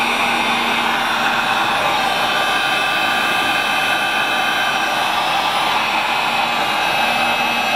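Heat gun blowing steadily with a faint whine from its fan, shrinking heat-shrink tubing onto a crimped battery cable lug.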